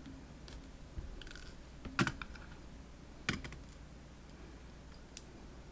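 A few small, sharp metallic clicks and taps, the clearest about two and three seconds in, from the tiny pins of a disassembled PacLock padlock being handled and set out one by one.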